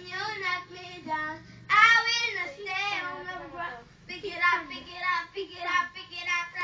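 A child singing, phrase after phrase, with a brief break about four seconds in.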